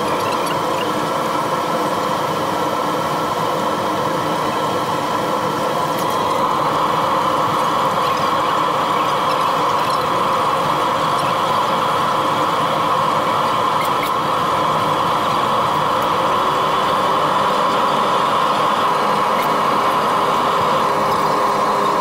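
Steady engine drone of a ferry heard from inside the passenger cabin, growing a little louder about six seconds in.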